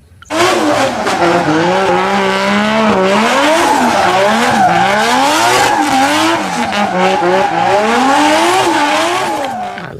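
Racing car engine revving up and down over and over, about once a second, with the pitch climbing and dropping each time.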